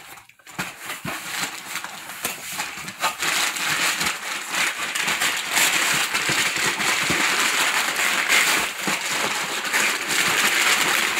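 Crumpled brown packing paper crinkling and rustling as it is pulled out of a cardboard shipping box, faint at first, then loud and continuous from about three seconds in.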